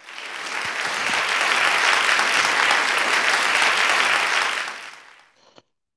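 Applause, swelling in over about a second, holding steady, then fading out around five seconds in.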